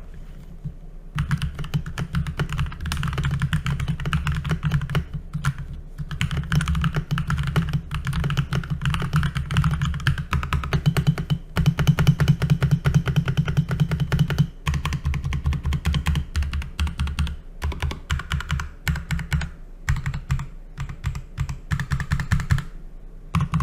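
Keystrokes on a Keychron K10 mechanical keyboard: rapid, continuous typing that starts about a second in, with a few brief pauses.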